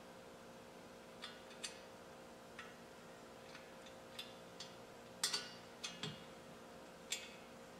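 Scattered light metallic clicks and taps from a winch's roller fairlead and mounting hardware being handled and fitted by hand. The clicks begin about a second in, and the loudest come a little past the middle and near the end. A faint steady hum lies underneath.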